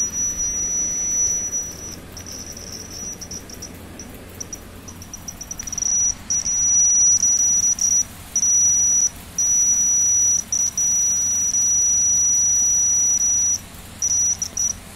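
Small 9-volt buzzer of a homemade earthquake alarm sounding one high-pitched tone that cuts in and out irregularly as the hanging pendulum rod touches and leaves its metal ring contact. It comes in short stuttering bursts at first, then holds for longer stretches with brief breaks.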